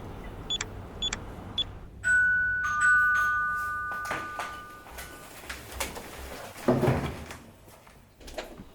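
Two-tone doorbell chime: a higher note and then a lower one about half a second later, both ringing on and fading over a few seconds. A few faint high ticks come before it, and a louder, duller knock-like sound follows later.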